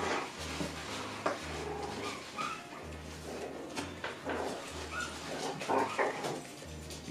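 Toy poodle puppies playing together: short high yips and whimpers mixed with scuffling and small knocks.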